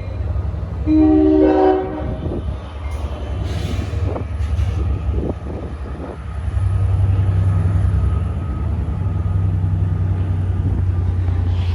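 Long Island Rail Road train sounding a short chord horn blast about a second in, then the steady low rumble of the train, which grows louder about halfway through.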